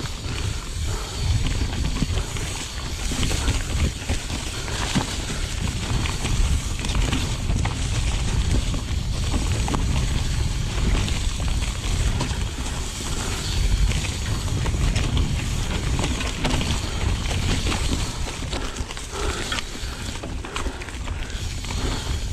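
Mountain bike rolling fast down a dirt forest trail: a steady rumble of tyres and wind on the microphone, with frequent clicks and rattles from the bike as it goes over roots and bumps.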